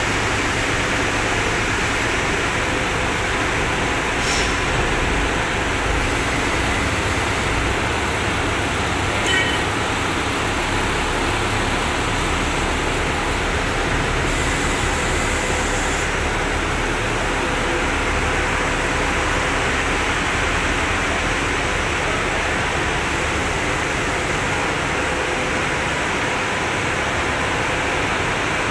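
Steady running noise of road rollers' diesel engines as the rollers compact fresh asphalt, with a low hum that shifts slightly now and then.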